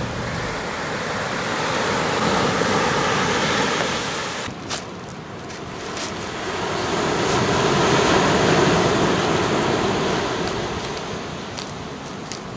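Surf breaking and washing ashore, the rush of water swelling and fading twice.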